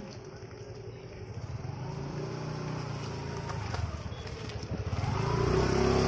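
Motor vehicles passing close by on the street, engines humming: one passes about two seconds in, and a second, louder one near the end.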